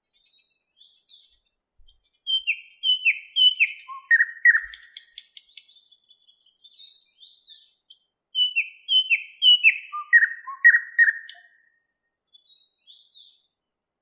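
Thrush nightingale singing: two loud phrases, each a run of repeated downward-sliding whistles ending in a fast clicking rattle, with soft quiet notes before, between and after them.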